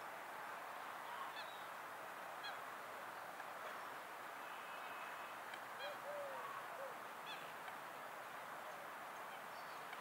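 Waterbirds on a lake giving short calls every second or two, with a few lower, arching calls just past the middle, over a steady background hiss.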